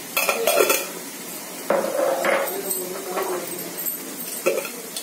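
Steel spoon and metal dishes clinking and scraping, with a cluster of clinks in the first second and a clatter around two seconds in, over chopped onions sizzling lightly in oil in a stainless-steel pan.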